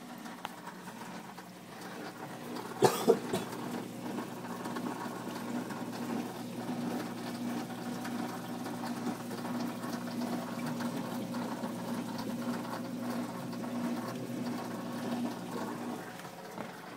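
Steady hum of an aquarium pump with water running. Two sharp knocks about three seconds in.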